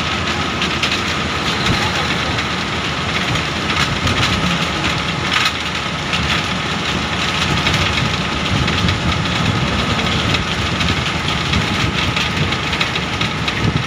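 Steady rumble and rush of a moving vehicle, heard from inside at an open window, with air rushing past.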